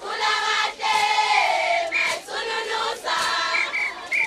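A group of voices singing a chant together, with sharp hits striking roughly once a second.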